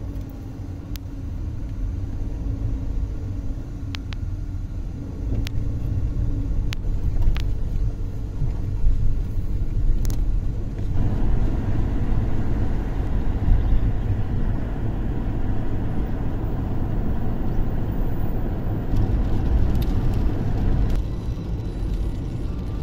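Car driving on a wet road, heard from inside the cabin: a steady low engine and road rumble, with a few light ticks in the first half. Tyre hiss on the wet surface grows louder about halfway through.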